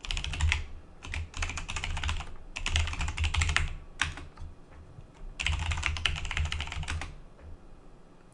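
Typing on a computer keyboard: quick runs of keystrokes, a pause of about a second and a half, then another run that stops about seven seconds in.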